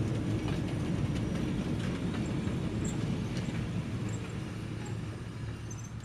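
Small excursion train, a Fairmont A6 motor car pulling open passenger cars, rolling past on jointed track: a steady low engine and wheel rumble with scattered wheel clicks, fading as it moves away.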